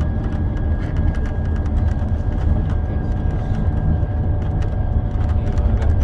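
Interior of a Scania Caetano Levante 2 coach on the move: a steady, deep engine and road rumble with a faint steady whine and occasional light rattles.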